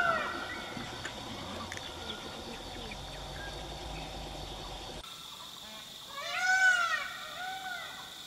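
Loud animal calls, each a single arching cry that rises and falls with several tones stacked together: one right at the start, then two more about six and seven seconds in. A steady high insect whine runs underneath.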